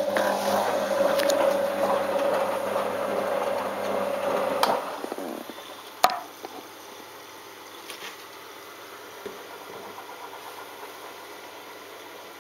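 Balay T-8295 washing machine running near the end of its programme, a steady whine over a hum that cuts off about five seconds in. About a second later comes a single sharp click, then only a low background hum.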